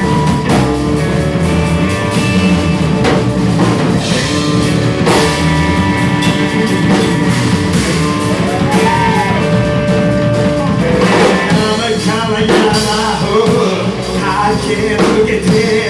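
A live rock band playing, with guitar over a drum kit.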